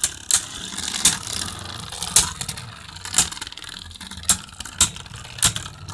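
Two Beyblade Burst tops spinning with a steady whir in a stadium bowl, clashing in sharp clicks every half second to second.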